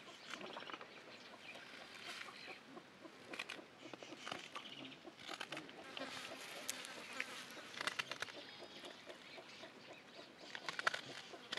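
Chickens clucking, with scattered sharp clicks and taps throughout, the loudest click near the end.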